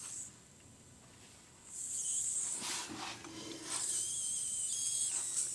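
Pressure escaping with a hiss through a split in a 1972 Ford F100's radiator: the cooling system is bleeding off pressure. The hiss comes in short spurts at first, then runs steadier in the second half with a thin high whistle for a second or so.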